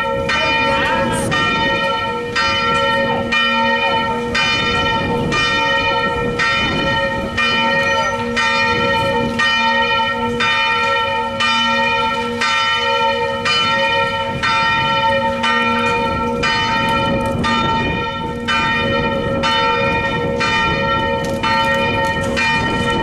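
A single church bell rung full-swing (a 'distesa'), its clapper striking about once a second, each stroke renewing a steady ringing hum. Wind buffets the microphone.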